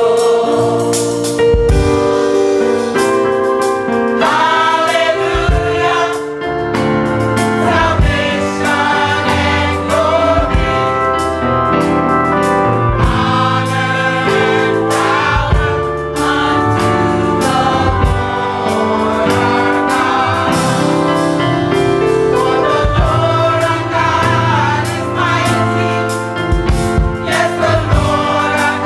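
Gospel choir singing a song together, with instrumental accompaniment and regular low beats under the voices.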